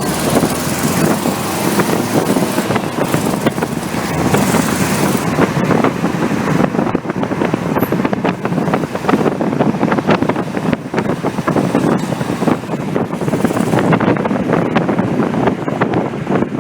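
1969 VW Beetle's air-cooled 1500 flat-four engine running loud with a rapid rasping exhaust, leaking through a muffler whose pipe weld has broken away, leaving a gap at the heater exchanger.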